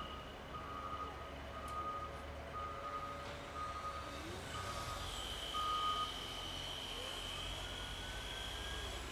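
Backup alarm of a Caterpillar wheel loader beeping about once a second while the machine reverses, over its diesel engine running; the beeps stop about six seconds in.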